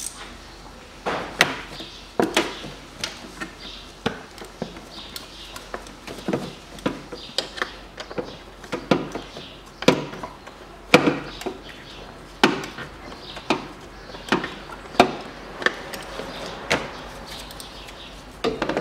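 Irregular sharp clacks and knocks, about one a second and some in quick pairs, from the plastic air-intake hose and engine cover being handled and worked loose under the hood.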